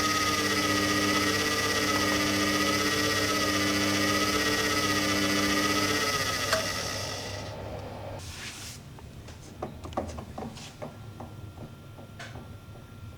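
Samsung Ecobubble WF1804WPU washing machine running with a steady motor whine that wavers slightly in pitch. About six seconds in it winds down and stops, and a scatter of light clicks and knocks follows.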